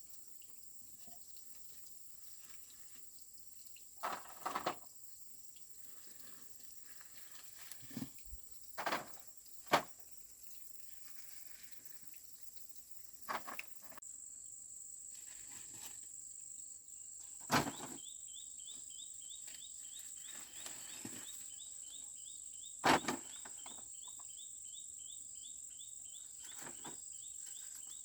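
Insects keep up a steady high-pitched drone that grows louder about halfway through, and a fast chirping insect joins in near the end. Several short, sharp cracks and rustles break in at intervals, the loudest around ten, seventeen and twenty-three seconds in.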